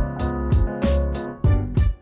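Background music: a piano-led track with a steady beat.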